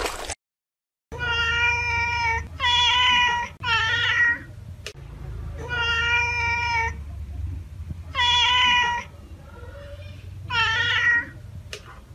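Tabby domestic cat meowing repeatedly: about six drawn-out meows, each roughly a second long, with short pauses between them.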